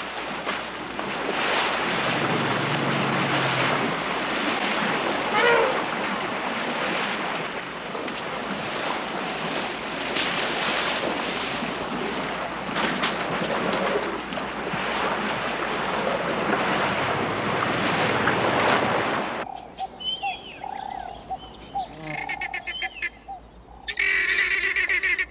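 Rushing, splashing water noise from elephants in a waterhole, with one short call about five seconds in. About twenty seconds in it cuts to a quieter scene of scattered bird calls, with a dense burst of chirping near the end.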